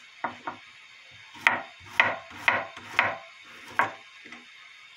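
Kitchen knife slicing garlic cloves on a bamboo cutting board: a string of separate sharp knocks of the blade on the wood, about seven in all, irregularly spaced with four in quick succession in the middle.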